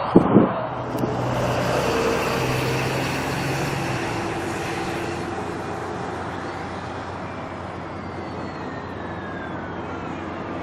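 Jet airliner's engines passing, a steady rush of engine noise with a thin whine that falls in pitch through the second half. Two short knocks right at the start.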